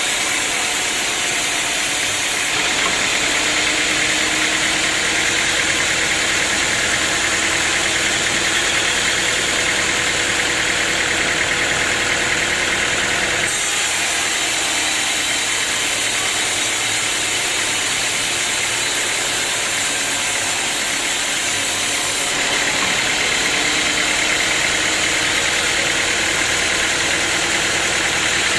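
Sawmill machinery running steadily, an engine-driven saw mill with a loud, even hiss and hum. Its sound changes suddenly three times: about two and a half seconds in, near the middle, and a few seconds before the end.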